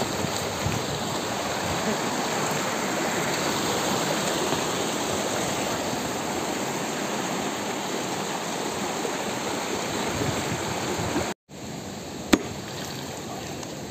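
Shallow mountain stream rushing over rocks, a steady wash of water. After a short break about eleven seconds in, the water is quieter and a single sharp crack sounds as a hammer strikes a rock in the stream.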